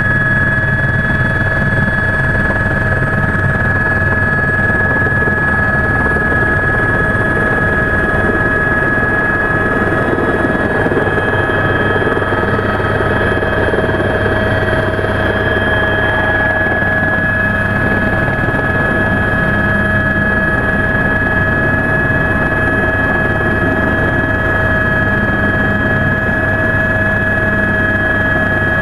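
Helicopter heard from inside the cabin in flight, running steadily: a low rotor drone under a constant high whine, with no change in pitch or level.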